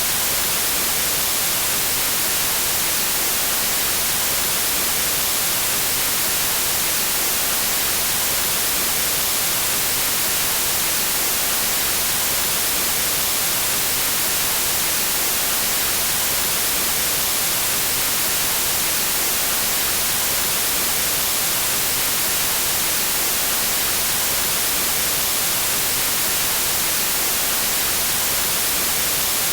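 Steady white noise: an even, unchanging hiss weighted toward the high end, with no variation.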